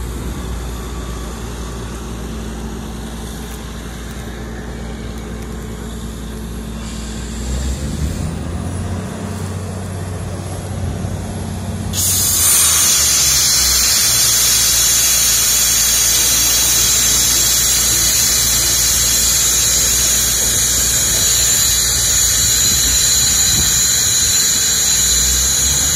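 A heavy engine runs with a steady low hum. About halfway through, a loud steady hiss starts suddenly and carries on over it.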